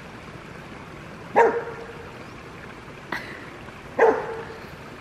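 A Bernese Mountain Dog barking: two short, sharp barks about a second and a half in and about four seconds in, with a softer one between them.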